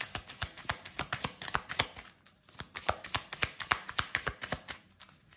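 A deck of oracle cards shuffled by hand: a quick run of light card clicks, about six a second, pausing briefly about two seconds in and again near the end.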